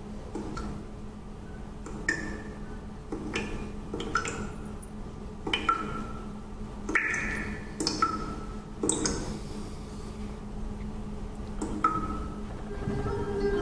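Sparse, irregular clinking pings, each a sharp tap followed by a brief ringing tone, about a dozen of them over a low steady hum.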